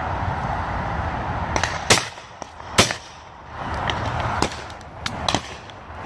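Shotguns firing at driven game birds: about six shots, the two loudest about a second apart around two seconds in, and fainter ones after. A steady rush of noise runs underneath before the first shots.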